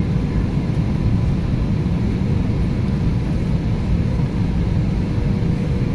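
Steady cabin noise inside an Airbus A320neo on approach: a low engine and airflow rumble with a faint steady hum above it.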